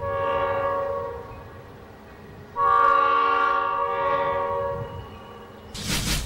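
Train horn sounding two long blasts, the second louder than the first. Near the end, music begins.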